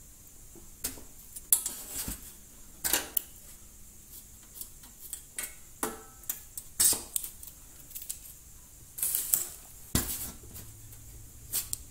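LED TV backlight strips being pried and pulled off the sheet-metal back panel: irregular clicks, scrapes and light clattering of the strips against the metal, several sharp snaps among them.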